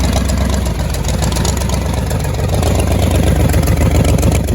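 Car engine idling loudly through an open-sounding exhaust, a steady deep rumble.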